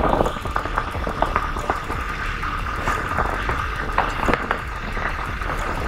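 Hero XPulse 200's 200 cc single-cylinder motorcycle running on the move, with wind rushing over the microphone. Frequent short sharp clicks and knocks run through it.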